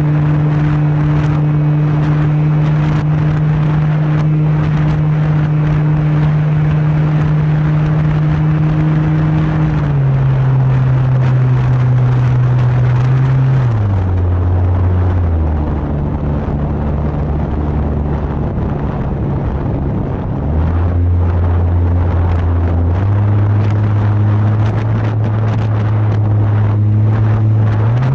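Motor and propeller of a radio-controlled Pilatus PC-21 model airplane in flight, a steady droning hum under rushing air noise. The pitch drops in steps as the throttle is eased back about a third of the way in, stays low for several seconds, then climbs back in steps to full power near the end.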